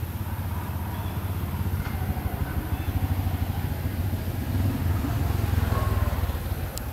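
Low, steady rumble of a motor vehicle engine, growing louder through the middle and easing near the end, as of a vehicle passing.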